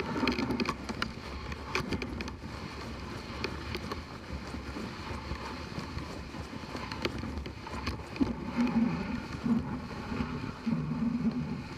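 Dog sled running over a packed snow trail: the runners hiss and scrape steadily on the snow, with scattered sharp clicks, while the sled dog team runs ahead.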